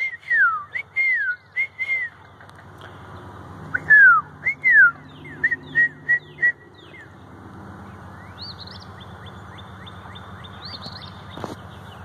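A person whistling a bird call by mouth: quick runs of downward-sliding whistled notes, the loudest about four seconds in, then a higher held whistle in the second half.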